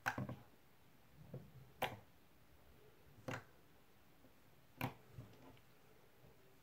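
Green slime poked with the fingertips, giving sharp pops as trapped air breaks out: four loud pops about a second and a half apart, with a few softer squishes between.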